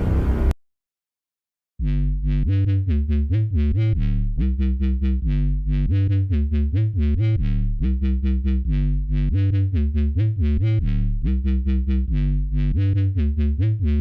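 Background music: an electronic track cuts off half a second in, then after about a second of silence a new synthesizer track starts with quick, even repeated notes over a steady bass beat.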